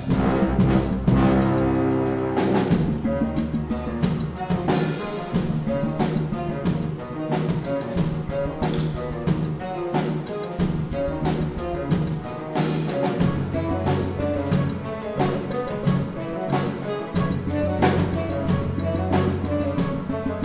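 Live studio orchestra with brass playing a film score: a held chord for the first couple of seconds gives way to a fast, busy rhythmic passage over low bass notes.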